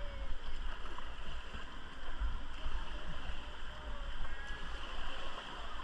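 River water rushing around a raft in a steady, rough hiss, with a low, uneven rumble on the microphone.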